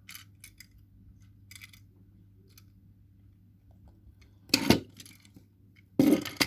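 Light clicks and clinks of small hard objects being handled, with one louder clattering knock about four and a half seconds in and another near the end.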